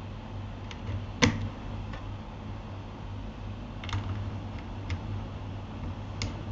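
Keys on a Keychron K8 mechanical keyboard pressed one at a time: about six separate clicks, with one sharper clack about a second in. A steady low hum runs underneath.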